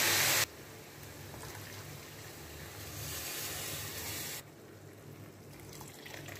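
Chicken broth poured from a jug into a hot pan of bulgur frying in tomato paste. A loud sizzling hiss cuts off abruptly about half a second in, followed by quieter sounds of liquid pouring into the pan, with a low steady hum underneath.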